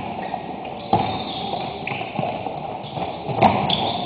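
Basketball sneakers squeaking on a hardwood court, short high squeals that come and go, with a few thuds of the ball and feet; the loudest, a sharp knock, comes about three and a half seconds in.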